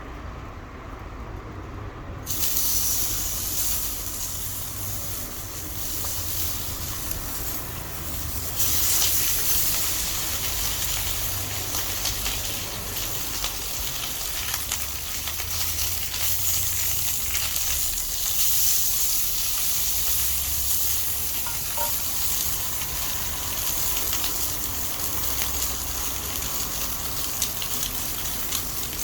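Beef rib roast frying in a cast-iron pan over a wood fire: a steady sizzle that starts suddenly about two seconds in and gets louder around eight seconds in.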